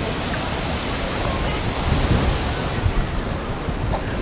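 Wave pool water sloshing and lapping around a camera held at the surface: a steady rushing noise with irregular low thumps, and faint crowd voices beneath.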